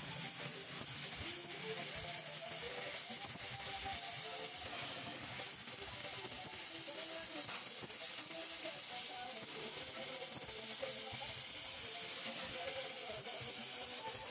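Gas welding torch flame hissing steadily while aluminium filler rod is melted into an aluminium engine crankcase, with music in the background.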